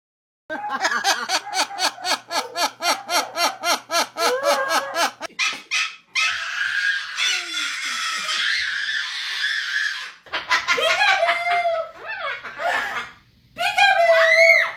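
Parrot vocalising: a long run of rapid laugh-like bursts, about five a second, then a harsh screech and several short rising-and-falling calls.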